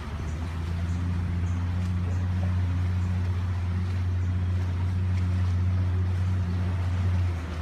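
Bass boat's outboard motor running steadily as a low, even hum, dropping in level near the end.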